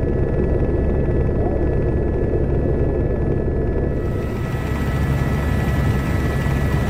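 Helicopter flying overhead: a steady, loud rotor and engine rumble with a faint high whine. About four seconds in the sound turns brighter, with more hiss.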